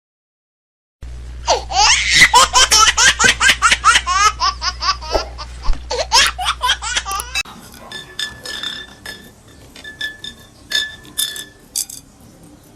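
A person laughing hard, a rapid run of loud laughing bursts starting about a second in and lasting around six seconds. The laughter then gives way to quieter short clinks and ticks.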